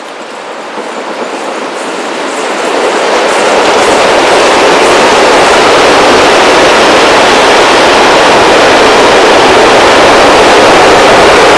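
Borsig Mikado steam locomotive 06 018 working a freight train: its exhaust beats grow louder over the first few seconds as it approaches, then it passes close by, loud and steady.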